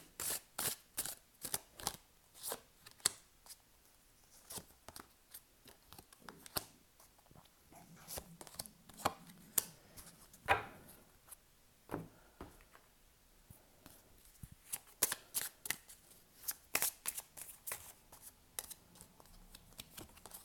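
A deck of oracle cards being shuffled by hand: a long run of quick, irregular card slaps and riffles, bunching into denser flurries now and then.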